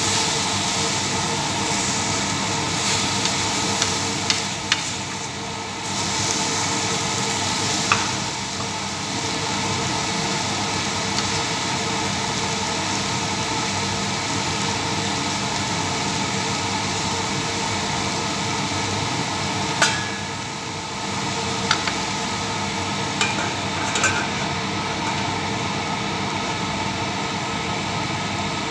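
Chicken sizzling as it fries in a stainless steel frying pan, stirred with a spatula. A steady frying hiss is broken by a few sharp clinks of the spatula on the pan, and in the second half by clinks as the lid goes on.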